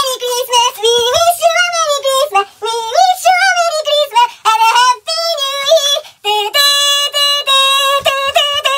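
High-pitched singing with a melody that glides up and down and breaks off briefly a few times, ending on one long held note near the end.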